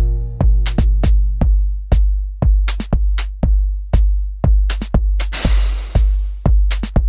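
Electronic background music with a drum-machine beat: a deep kick drum about twice a second under sharp snappy hits, with a hissing noise wash a little past the middle.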